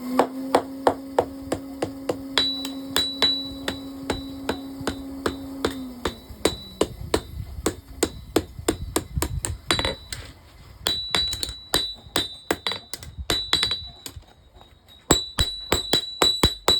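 Blacksmith's hammer striking metal on an anvil in a steady rhythm of about three blows a second, with a high metallic ring after many strikes. A steady hum runs under the first six seconds, then drops in pitch and fades out. The hammering pauses briefly near the end, then resumes.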